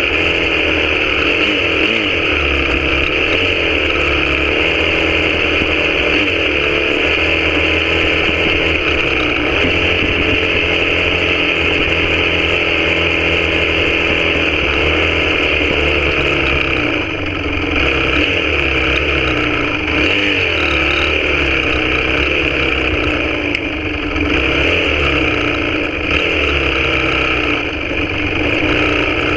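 Honda CRF250R four-stroke single-cylinder motocross bike engine running under way, its revs rising and falling again and again as the throttle is opened and closed.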